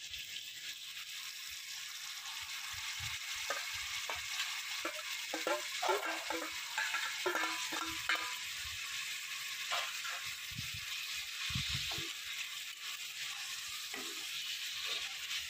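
Sliced onions sizzling steadily as they fry in hot oil in a kadai, with scattered light knocks and clicks.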